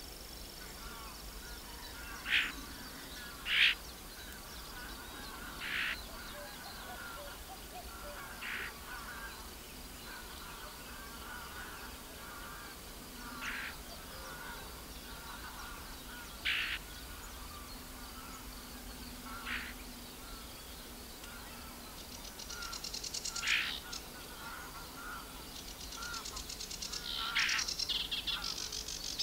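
Wetland birds: short, loud calls about every three seconds, then from about 22 seconds in a fast, scratchy chattering song, typical of a sedge warbler.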